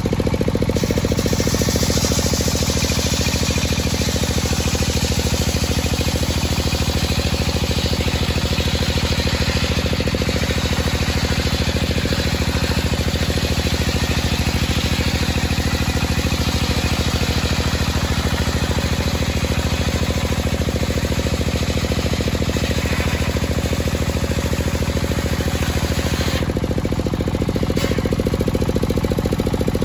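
A home-built table circular saw ripping a dry teak beam lengthwise: a steady cutting hiss over the low, even drone of the saw's drive. The cutting hiss stops about three seconds before the end as the blade leaves the wood, leaving the drive and the free-spinning blade running.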